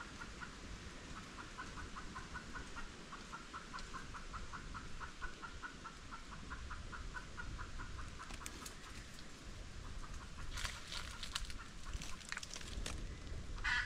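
Chickens clucking in a quick, even run of short calls, then rustling and clicks with a sharper, louder call near the end.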